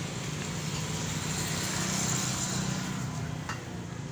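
A road vehicle passing: steady tyre and engine noise that swells to its loudest about halfway through and then fades.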